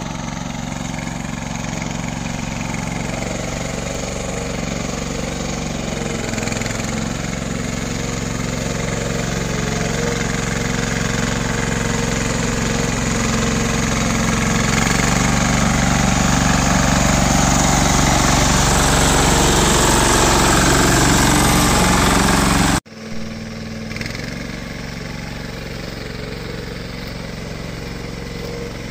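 Small mini tractor's single-cylinder diesel engine running as it drives along a muddy track with its trailer, growing steadily louder as it approaches. About 23 s in the sound drops suddenly to a quieter, more distant engine.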